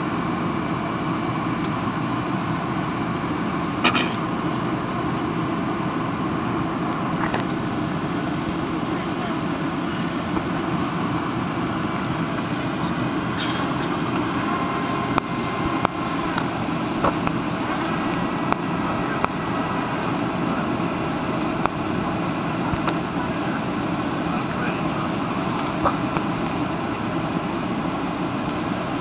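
Steady roar inside the cabin of a Boeing 737-700 airliner in flight, jet engine and airflow noise heard from a window seat over the wing. A few sharp clicks break through, the loudest about four seconds in.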